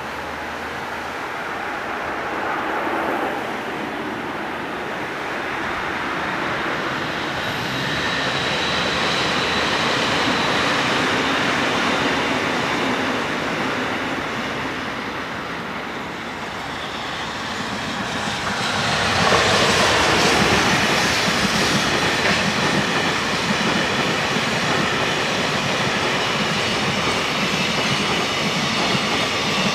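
Electric trains running on the track: first a commuter train rolling through. Then, from about 19 seconds in, a JR Freight EF210 electric locomotive and its container wagons rumble past close by, with steady wheel-on-rail rolling noise and clatter over the rail joints.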